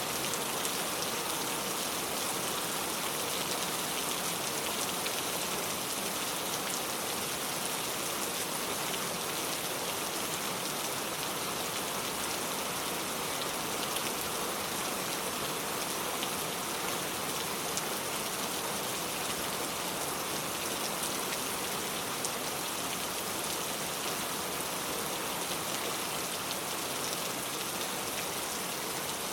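Steady rain falling, a dense even patter with fine scattered drop ticks and no change in intensity.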